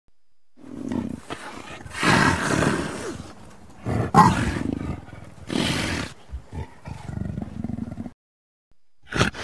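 Troodon dinosaur sound effect: a string of roaring calls, loudest about two, four and six seconds in, that cuts off suddenly a little after eight seconds. A new call starts just before the end.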